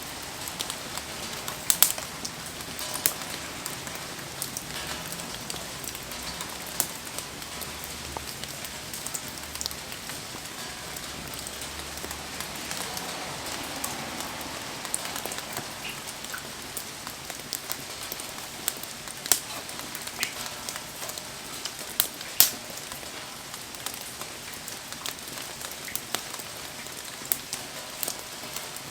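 Wood campfire burning in steady rain: a constant patter and hiss of rain with scattered sharp crackles and pops from the fire, a couple of them standing out loudly.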